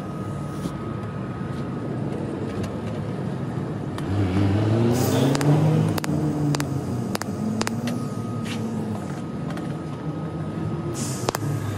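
A motor vehicle's engine is heard near the middle, its pitch rising and then falling, over a steady background hum broken by scattered sharp clicks.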